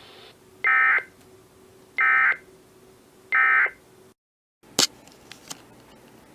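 Emergency Alert System end-of-message data signal on NOAA Weather Radio: three short, identical digital data bursts, each about a third of a second, a little over a second apart. About a second after the last burst the audio drops out briefly and a sharp click follows as the transmission ends.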